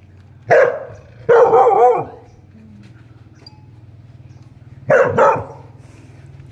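Dog barking at a lizard it is trying to catch: a short bark about half a second in, a longer wavering bark a moment later, then two quick barks close together near the end.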